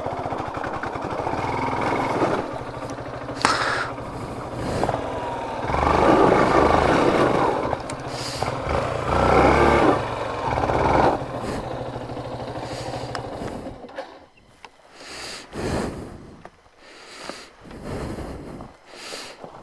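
Yamaha FZ motorcycle engine running and revving hard in two surges as the rider tries to get the bike free after getting stuck on the off-road track. The engine sound dies away about two-thirds of the way through.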